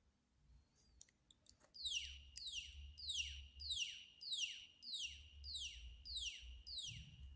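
Buzzer of a Micro:bit gas alarm sounding its alert: a high electronic tone falling in pitch, repeated about nine times at a little under two per second, starting about two seconds in. The alert is the signal that the MQ-4 sensor has detected gas.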